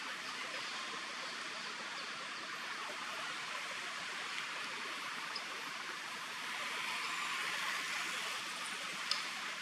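Steady outdoor background hiss, with a few faint ticks and one sharp click about nine seconds in.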